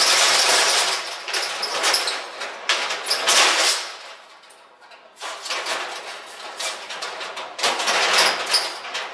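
Corrugated steel roller shutter pulled down over a shop front, its slats rattling loudly through the first second, with more rattling bursts for a few seconds after. After a brief lull, scattered clanks and rattles as the shutter's bottom edge is secured at the ground.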